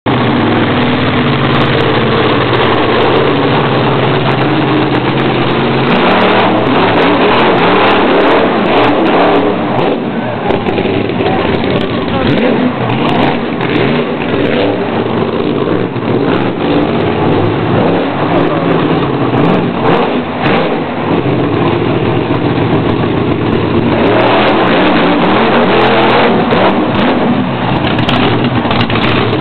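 Monster truck engine running loud and revving. Its note shifts about six seconds in and again near the end.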